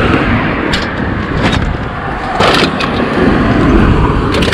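Road traffic noise, a car going by on the street, with several sharp clicks and knocks over it, a cluster of them near the end.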